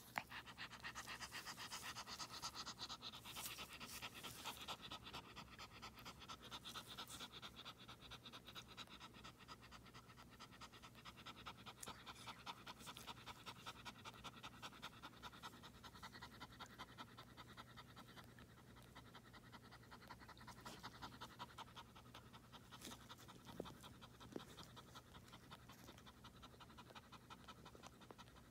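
A small terrier-type mother dog panting fast and steadily while in labour, as the next puppy in its amniotic sac is being delivered.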